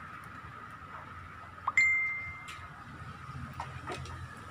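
A single bright ding about two seconds in: a clear high tone that starts suddenly and holds for just under a second. Around it are a few faint clicks of hands working the ring light's phone clamp.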